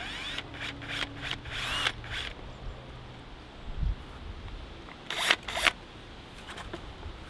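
Hilti cordless drill run in short bursts, its bit cutting into a plastic number plate. There are several quick bursts with the motor's pitch rising and falling in the first two seconds, then two louder bursts about five seconds in.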